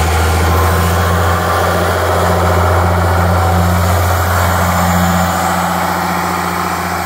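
International Harvester 826 Hydro tractor's engine idling with a steady, even low hum.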